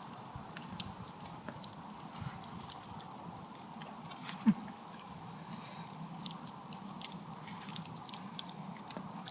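A person chewing crunchy food close to the microphone, with irregular sharp little crunches and clicks.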